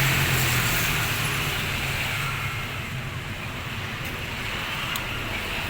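A motor vehicle passing by, its engine and road noise loudest at the start and fading away over the first couple of seconds, leaving a steady traffic hum.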